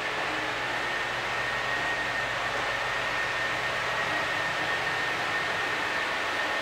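Steady machinery noise of a running container ship: an even noise with a thin, steady high whine over it.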